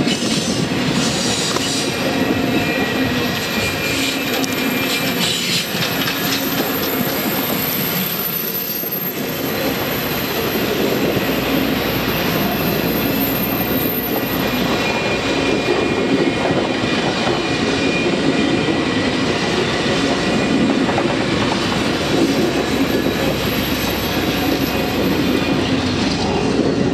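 Passenger cars of an excursion train rolling past on the rails: a steady loud rumble and clatter of wheels on track, with a thin high wheel squeal at times.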